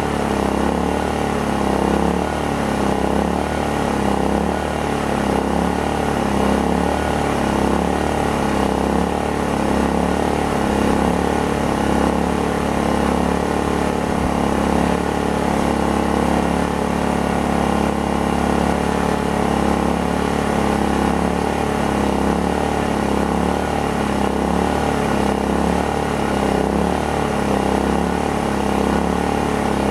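Predator inverter generator's small gasoline engine running steadily under load, carrying the camper air conditioner's compressor and fan at about 500 watts, its speed just a little above idle.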